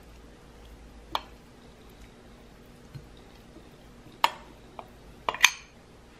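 Sharp clinks of glass and a metal spoon against a glass mixing bowl as minced pork is tipped in from a smaller glass bowl: one clink about a second in, then a quick run of four in the second half, the last the loudest.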